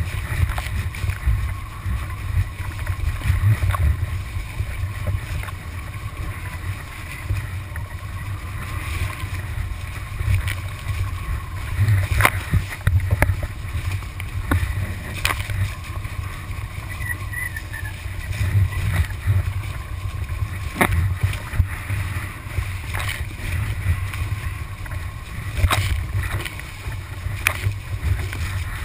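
Kiteboard riding fast over the sea: wind rumbling on the microphone and water rushing and spraying along the board. A few sharp knocks come through, the loudest about halfway through, as the board hits the chop or spray strikes the camera.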